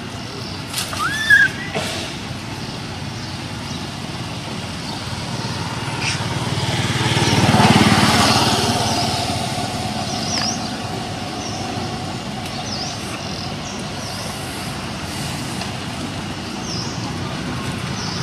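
A motor vehicle passing, its sound swelling to a peak about eight seconds in and fading, over a steady low traffic rumble. A short rising squeak sounds just over a second in, and small high chirps come and go later on.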